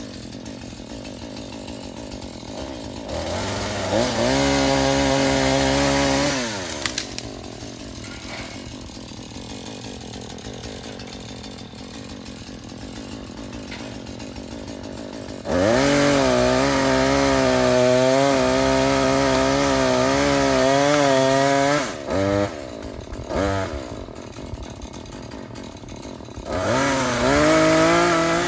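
Two-stroke chainsaw idling, then revved to full speed three times, the longest run lasting about six seconds in the middle, with two quick blips of the throttle after it. Near the end the engine's pitch sags and wavers as the chain is loaded in the wood of a limb.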